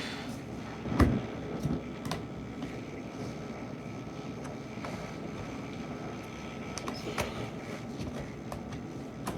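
Handling of a laptop battery being fitted into an HP ProBook's battery bay: a few small, scattered plastic clicks and knocks over a steady low background noise, ending with a sharper click as the battery latches into place.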